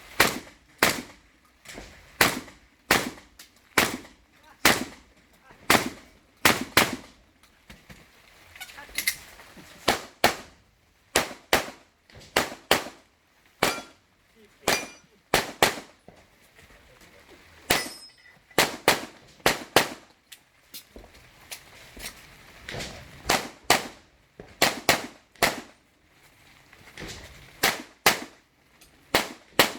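Gunfire from a 3-gun competition stage: dozens of sharp shots fired in quick strings, often in pairs about half a second apart, with short pauses between strings.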